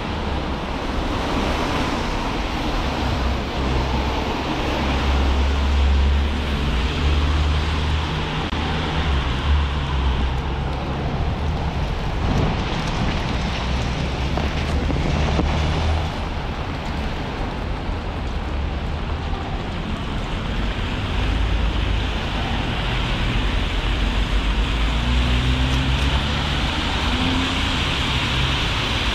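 Steady hiss of heavy rain, with the low rumble of vehicles passing on the wet street and swelling and fading several times.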